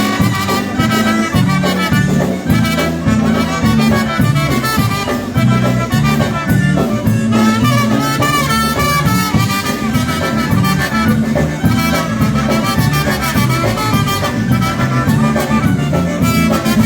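Live polka band playing an instrumental passage of a Polish polka, with no singing.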